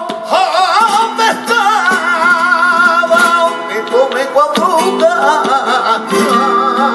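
Flamenco cante por soleá apolá: a man sings long, wavering, ornamented held notes over flamenco guitar, with palmas (hand clapping) keeping time.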